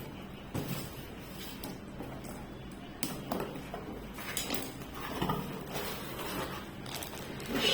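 Irregular rustling with scattered light clicks and knocks as plastic mixer-grinder parts and packaging are handled, over a faint steady low hum.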